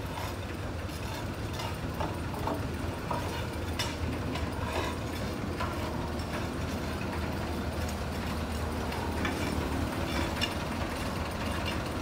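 JCB 3CX backhoe loader's diesel engine running steadily, with scattered metallic clicks and knocks over the engine hum.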